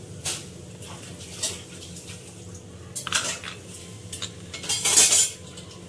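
Stainless steel idli plates clinking as they are handled and their cups brushed with oil, a few separate metallic clinks with a louder clatter about five seconds in.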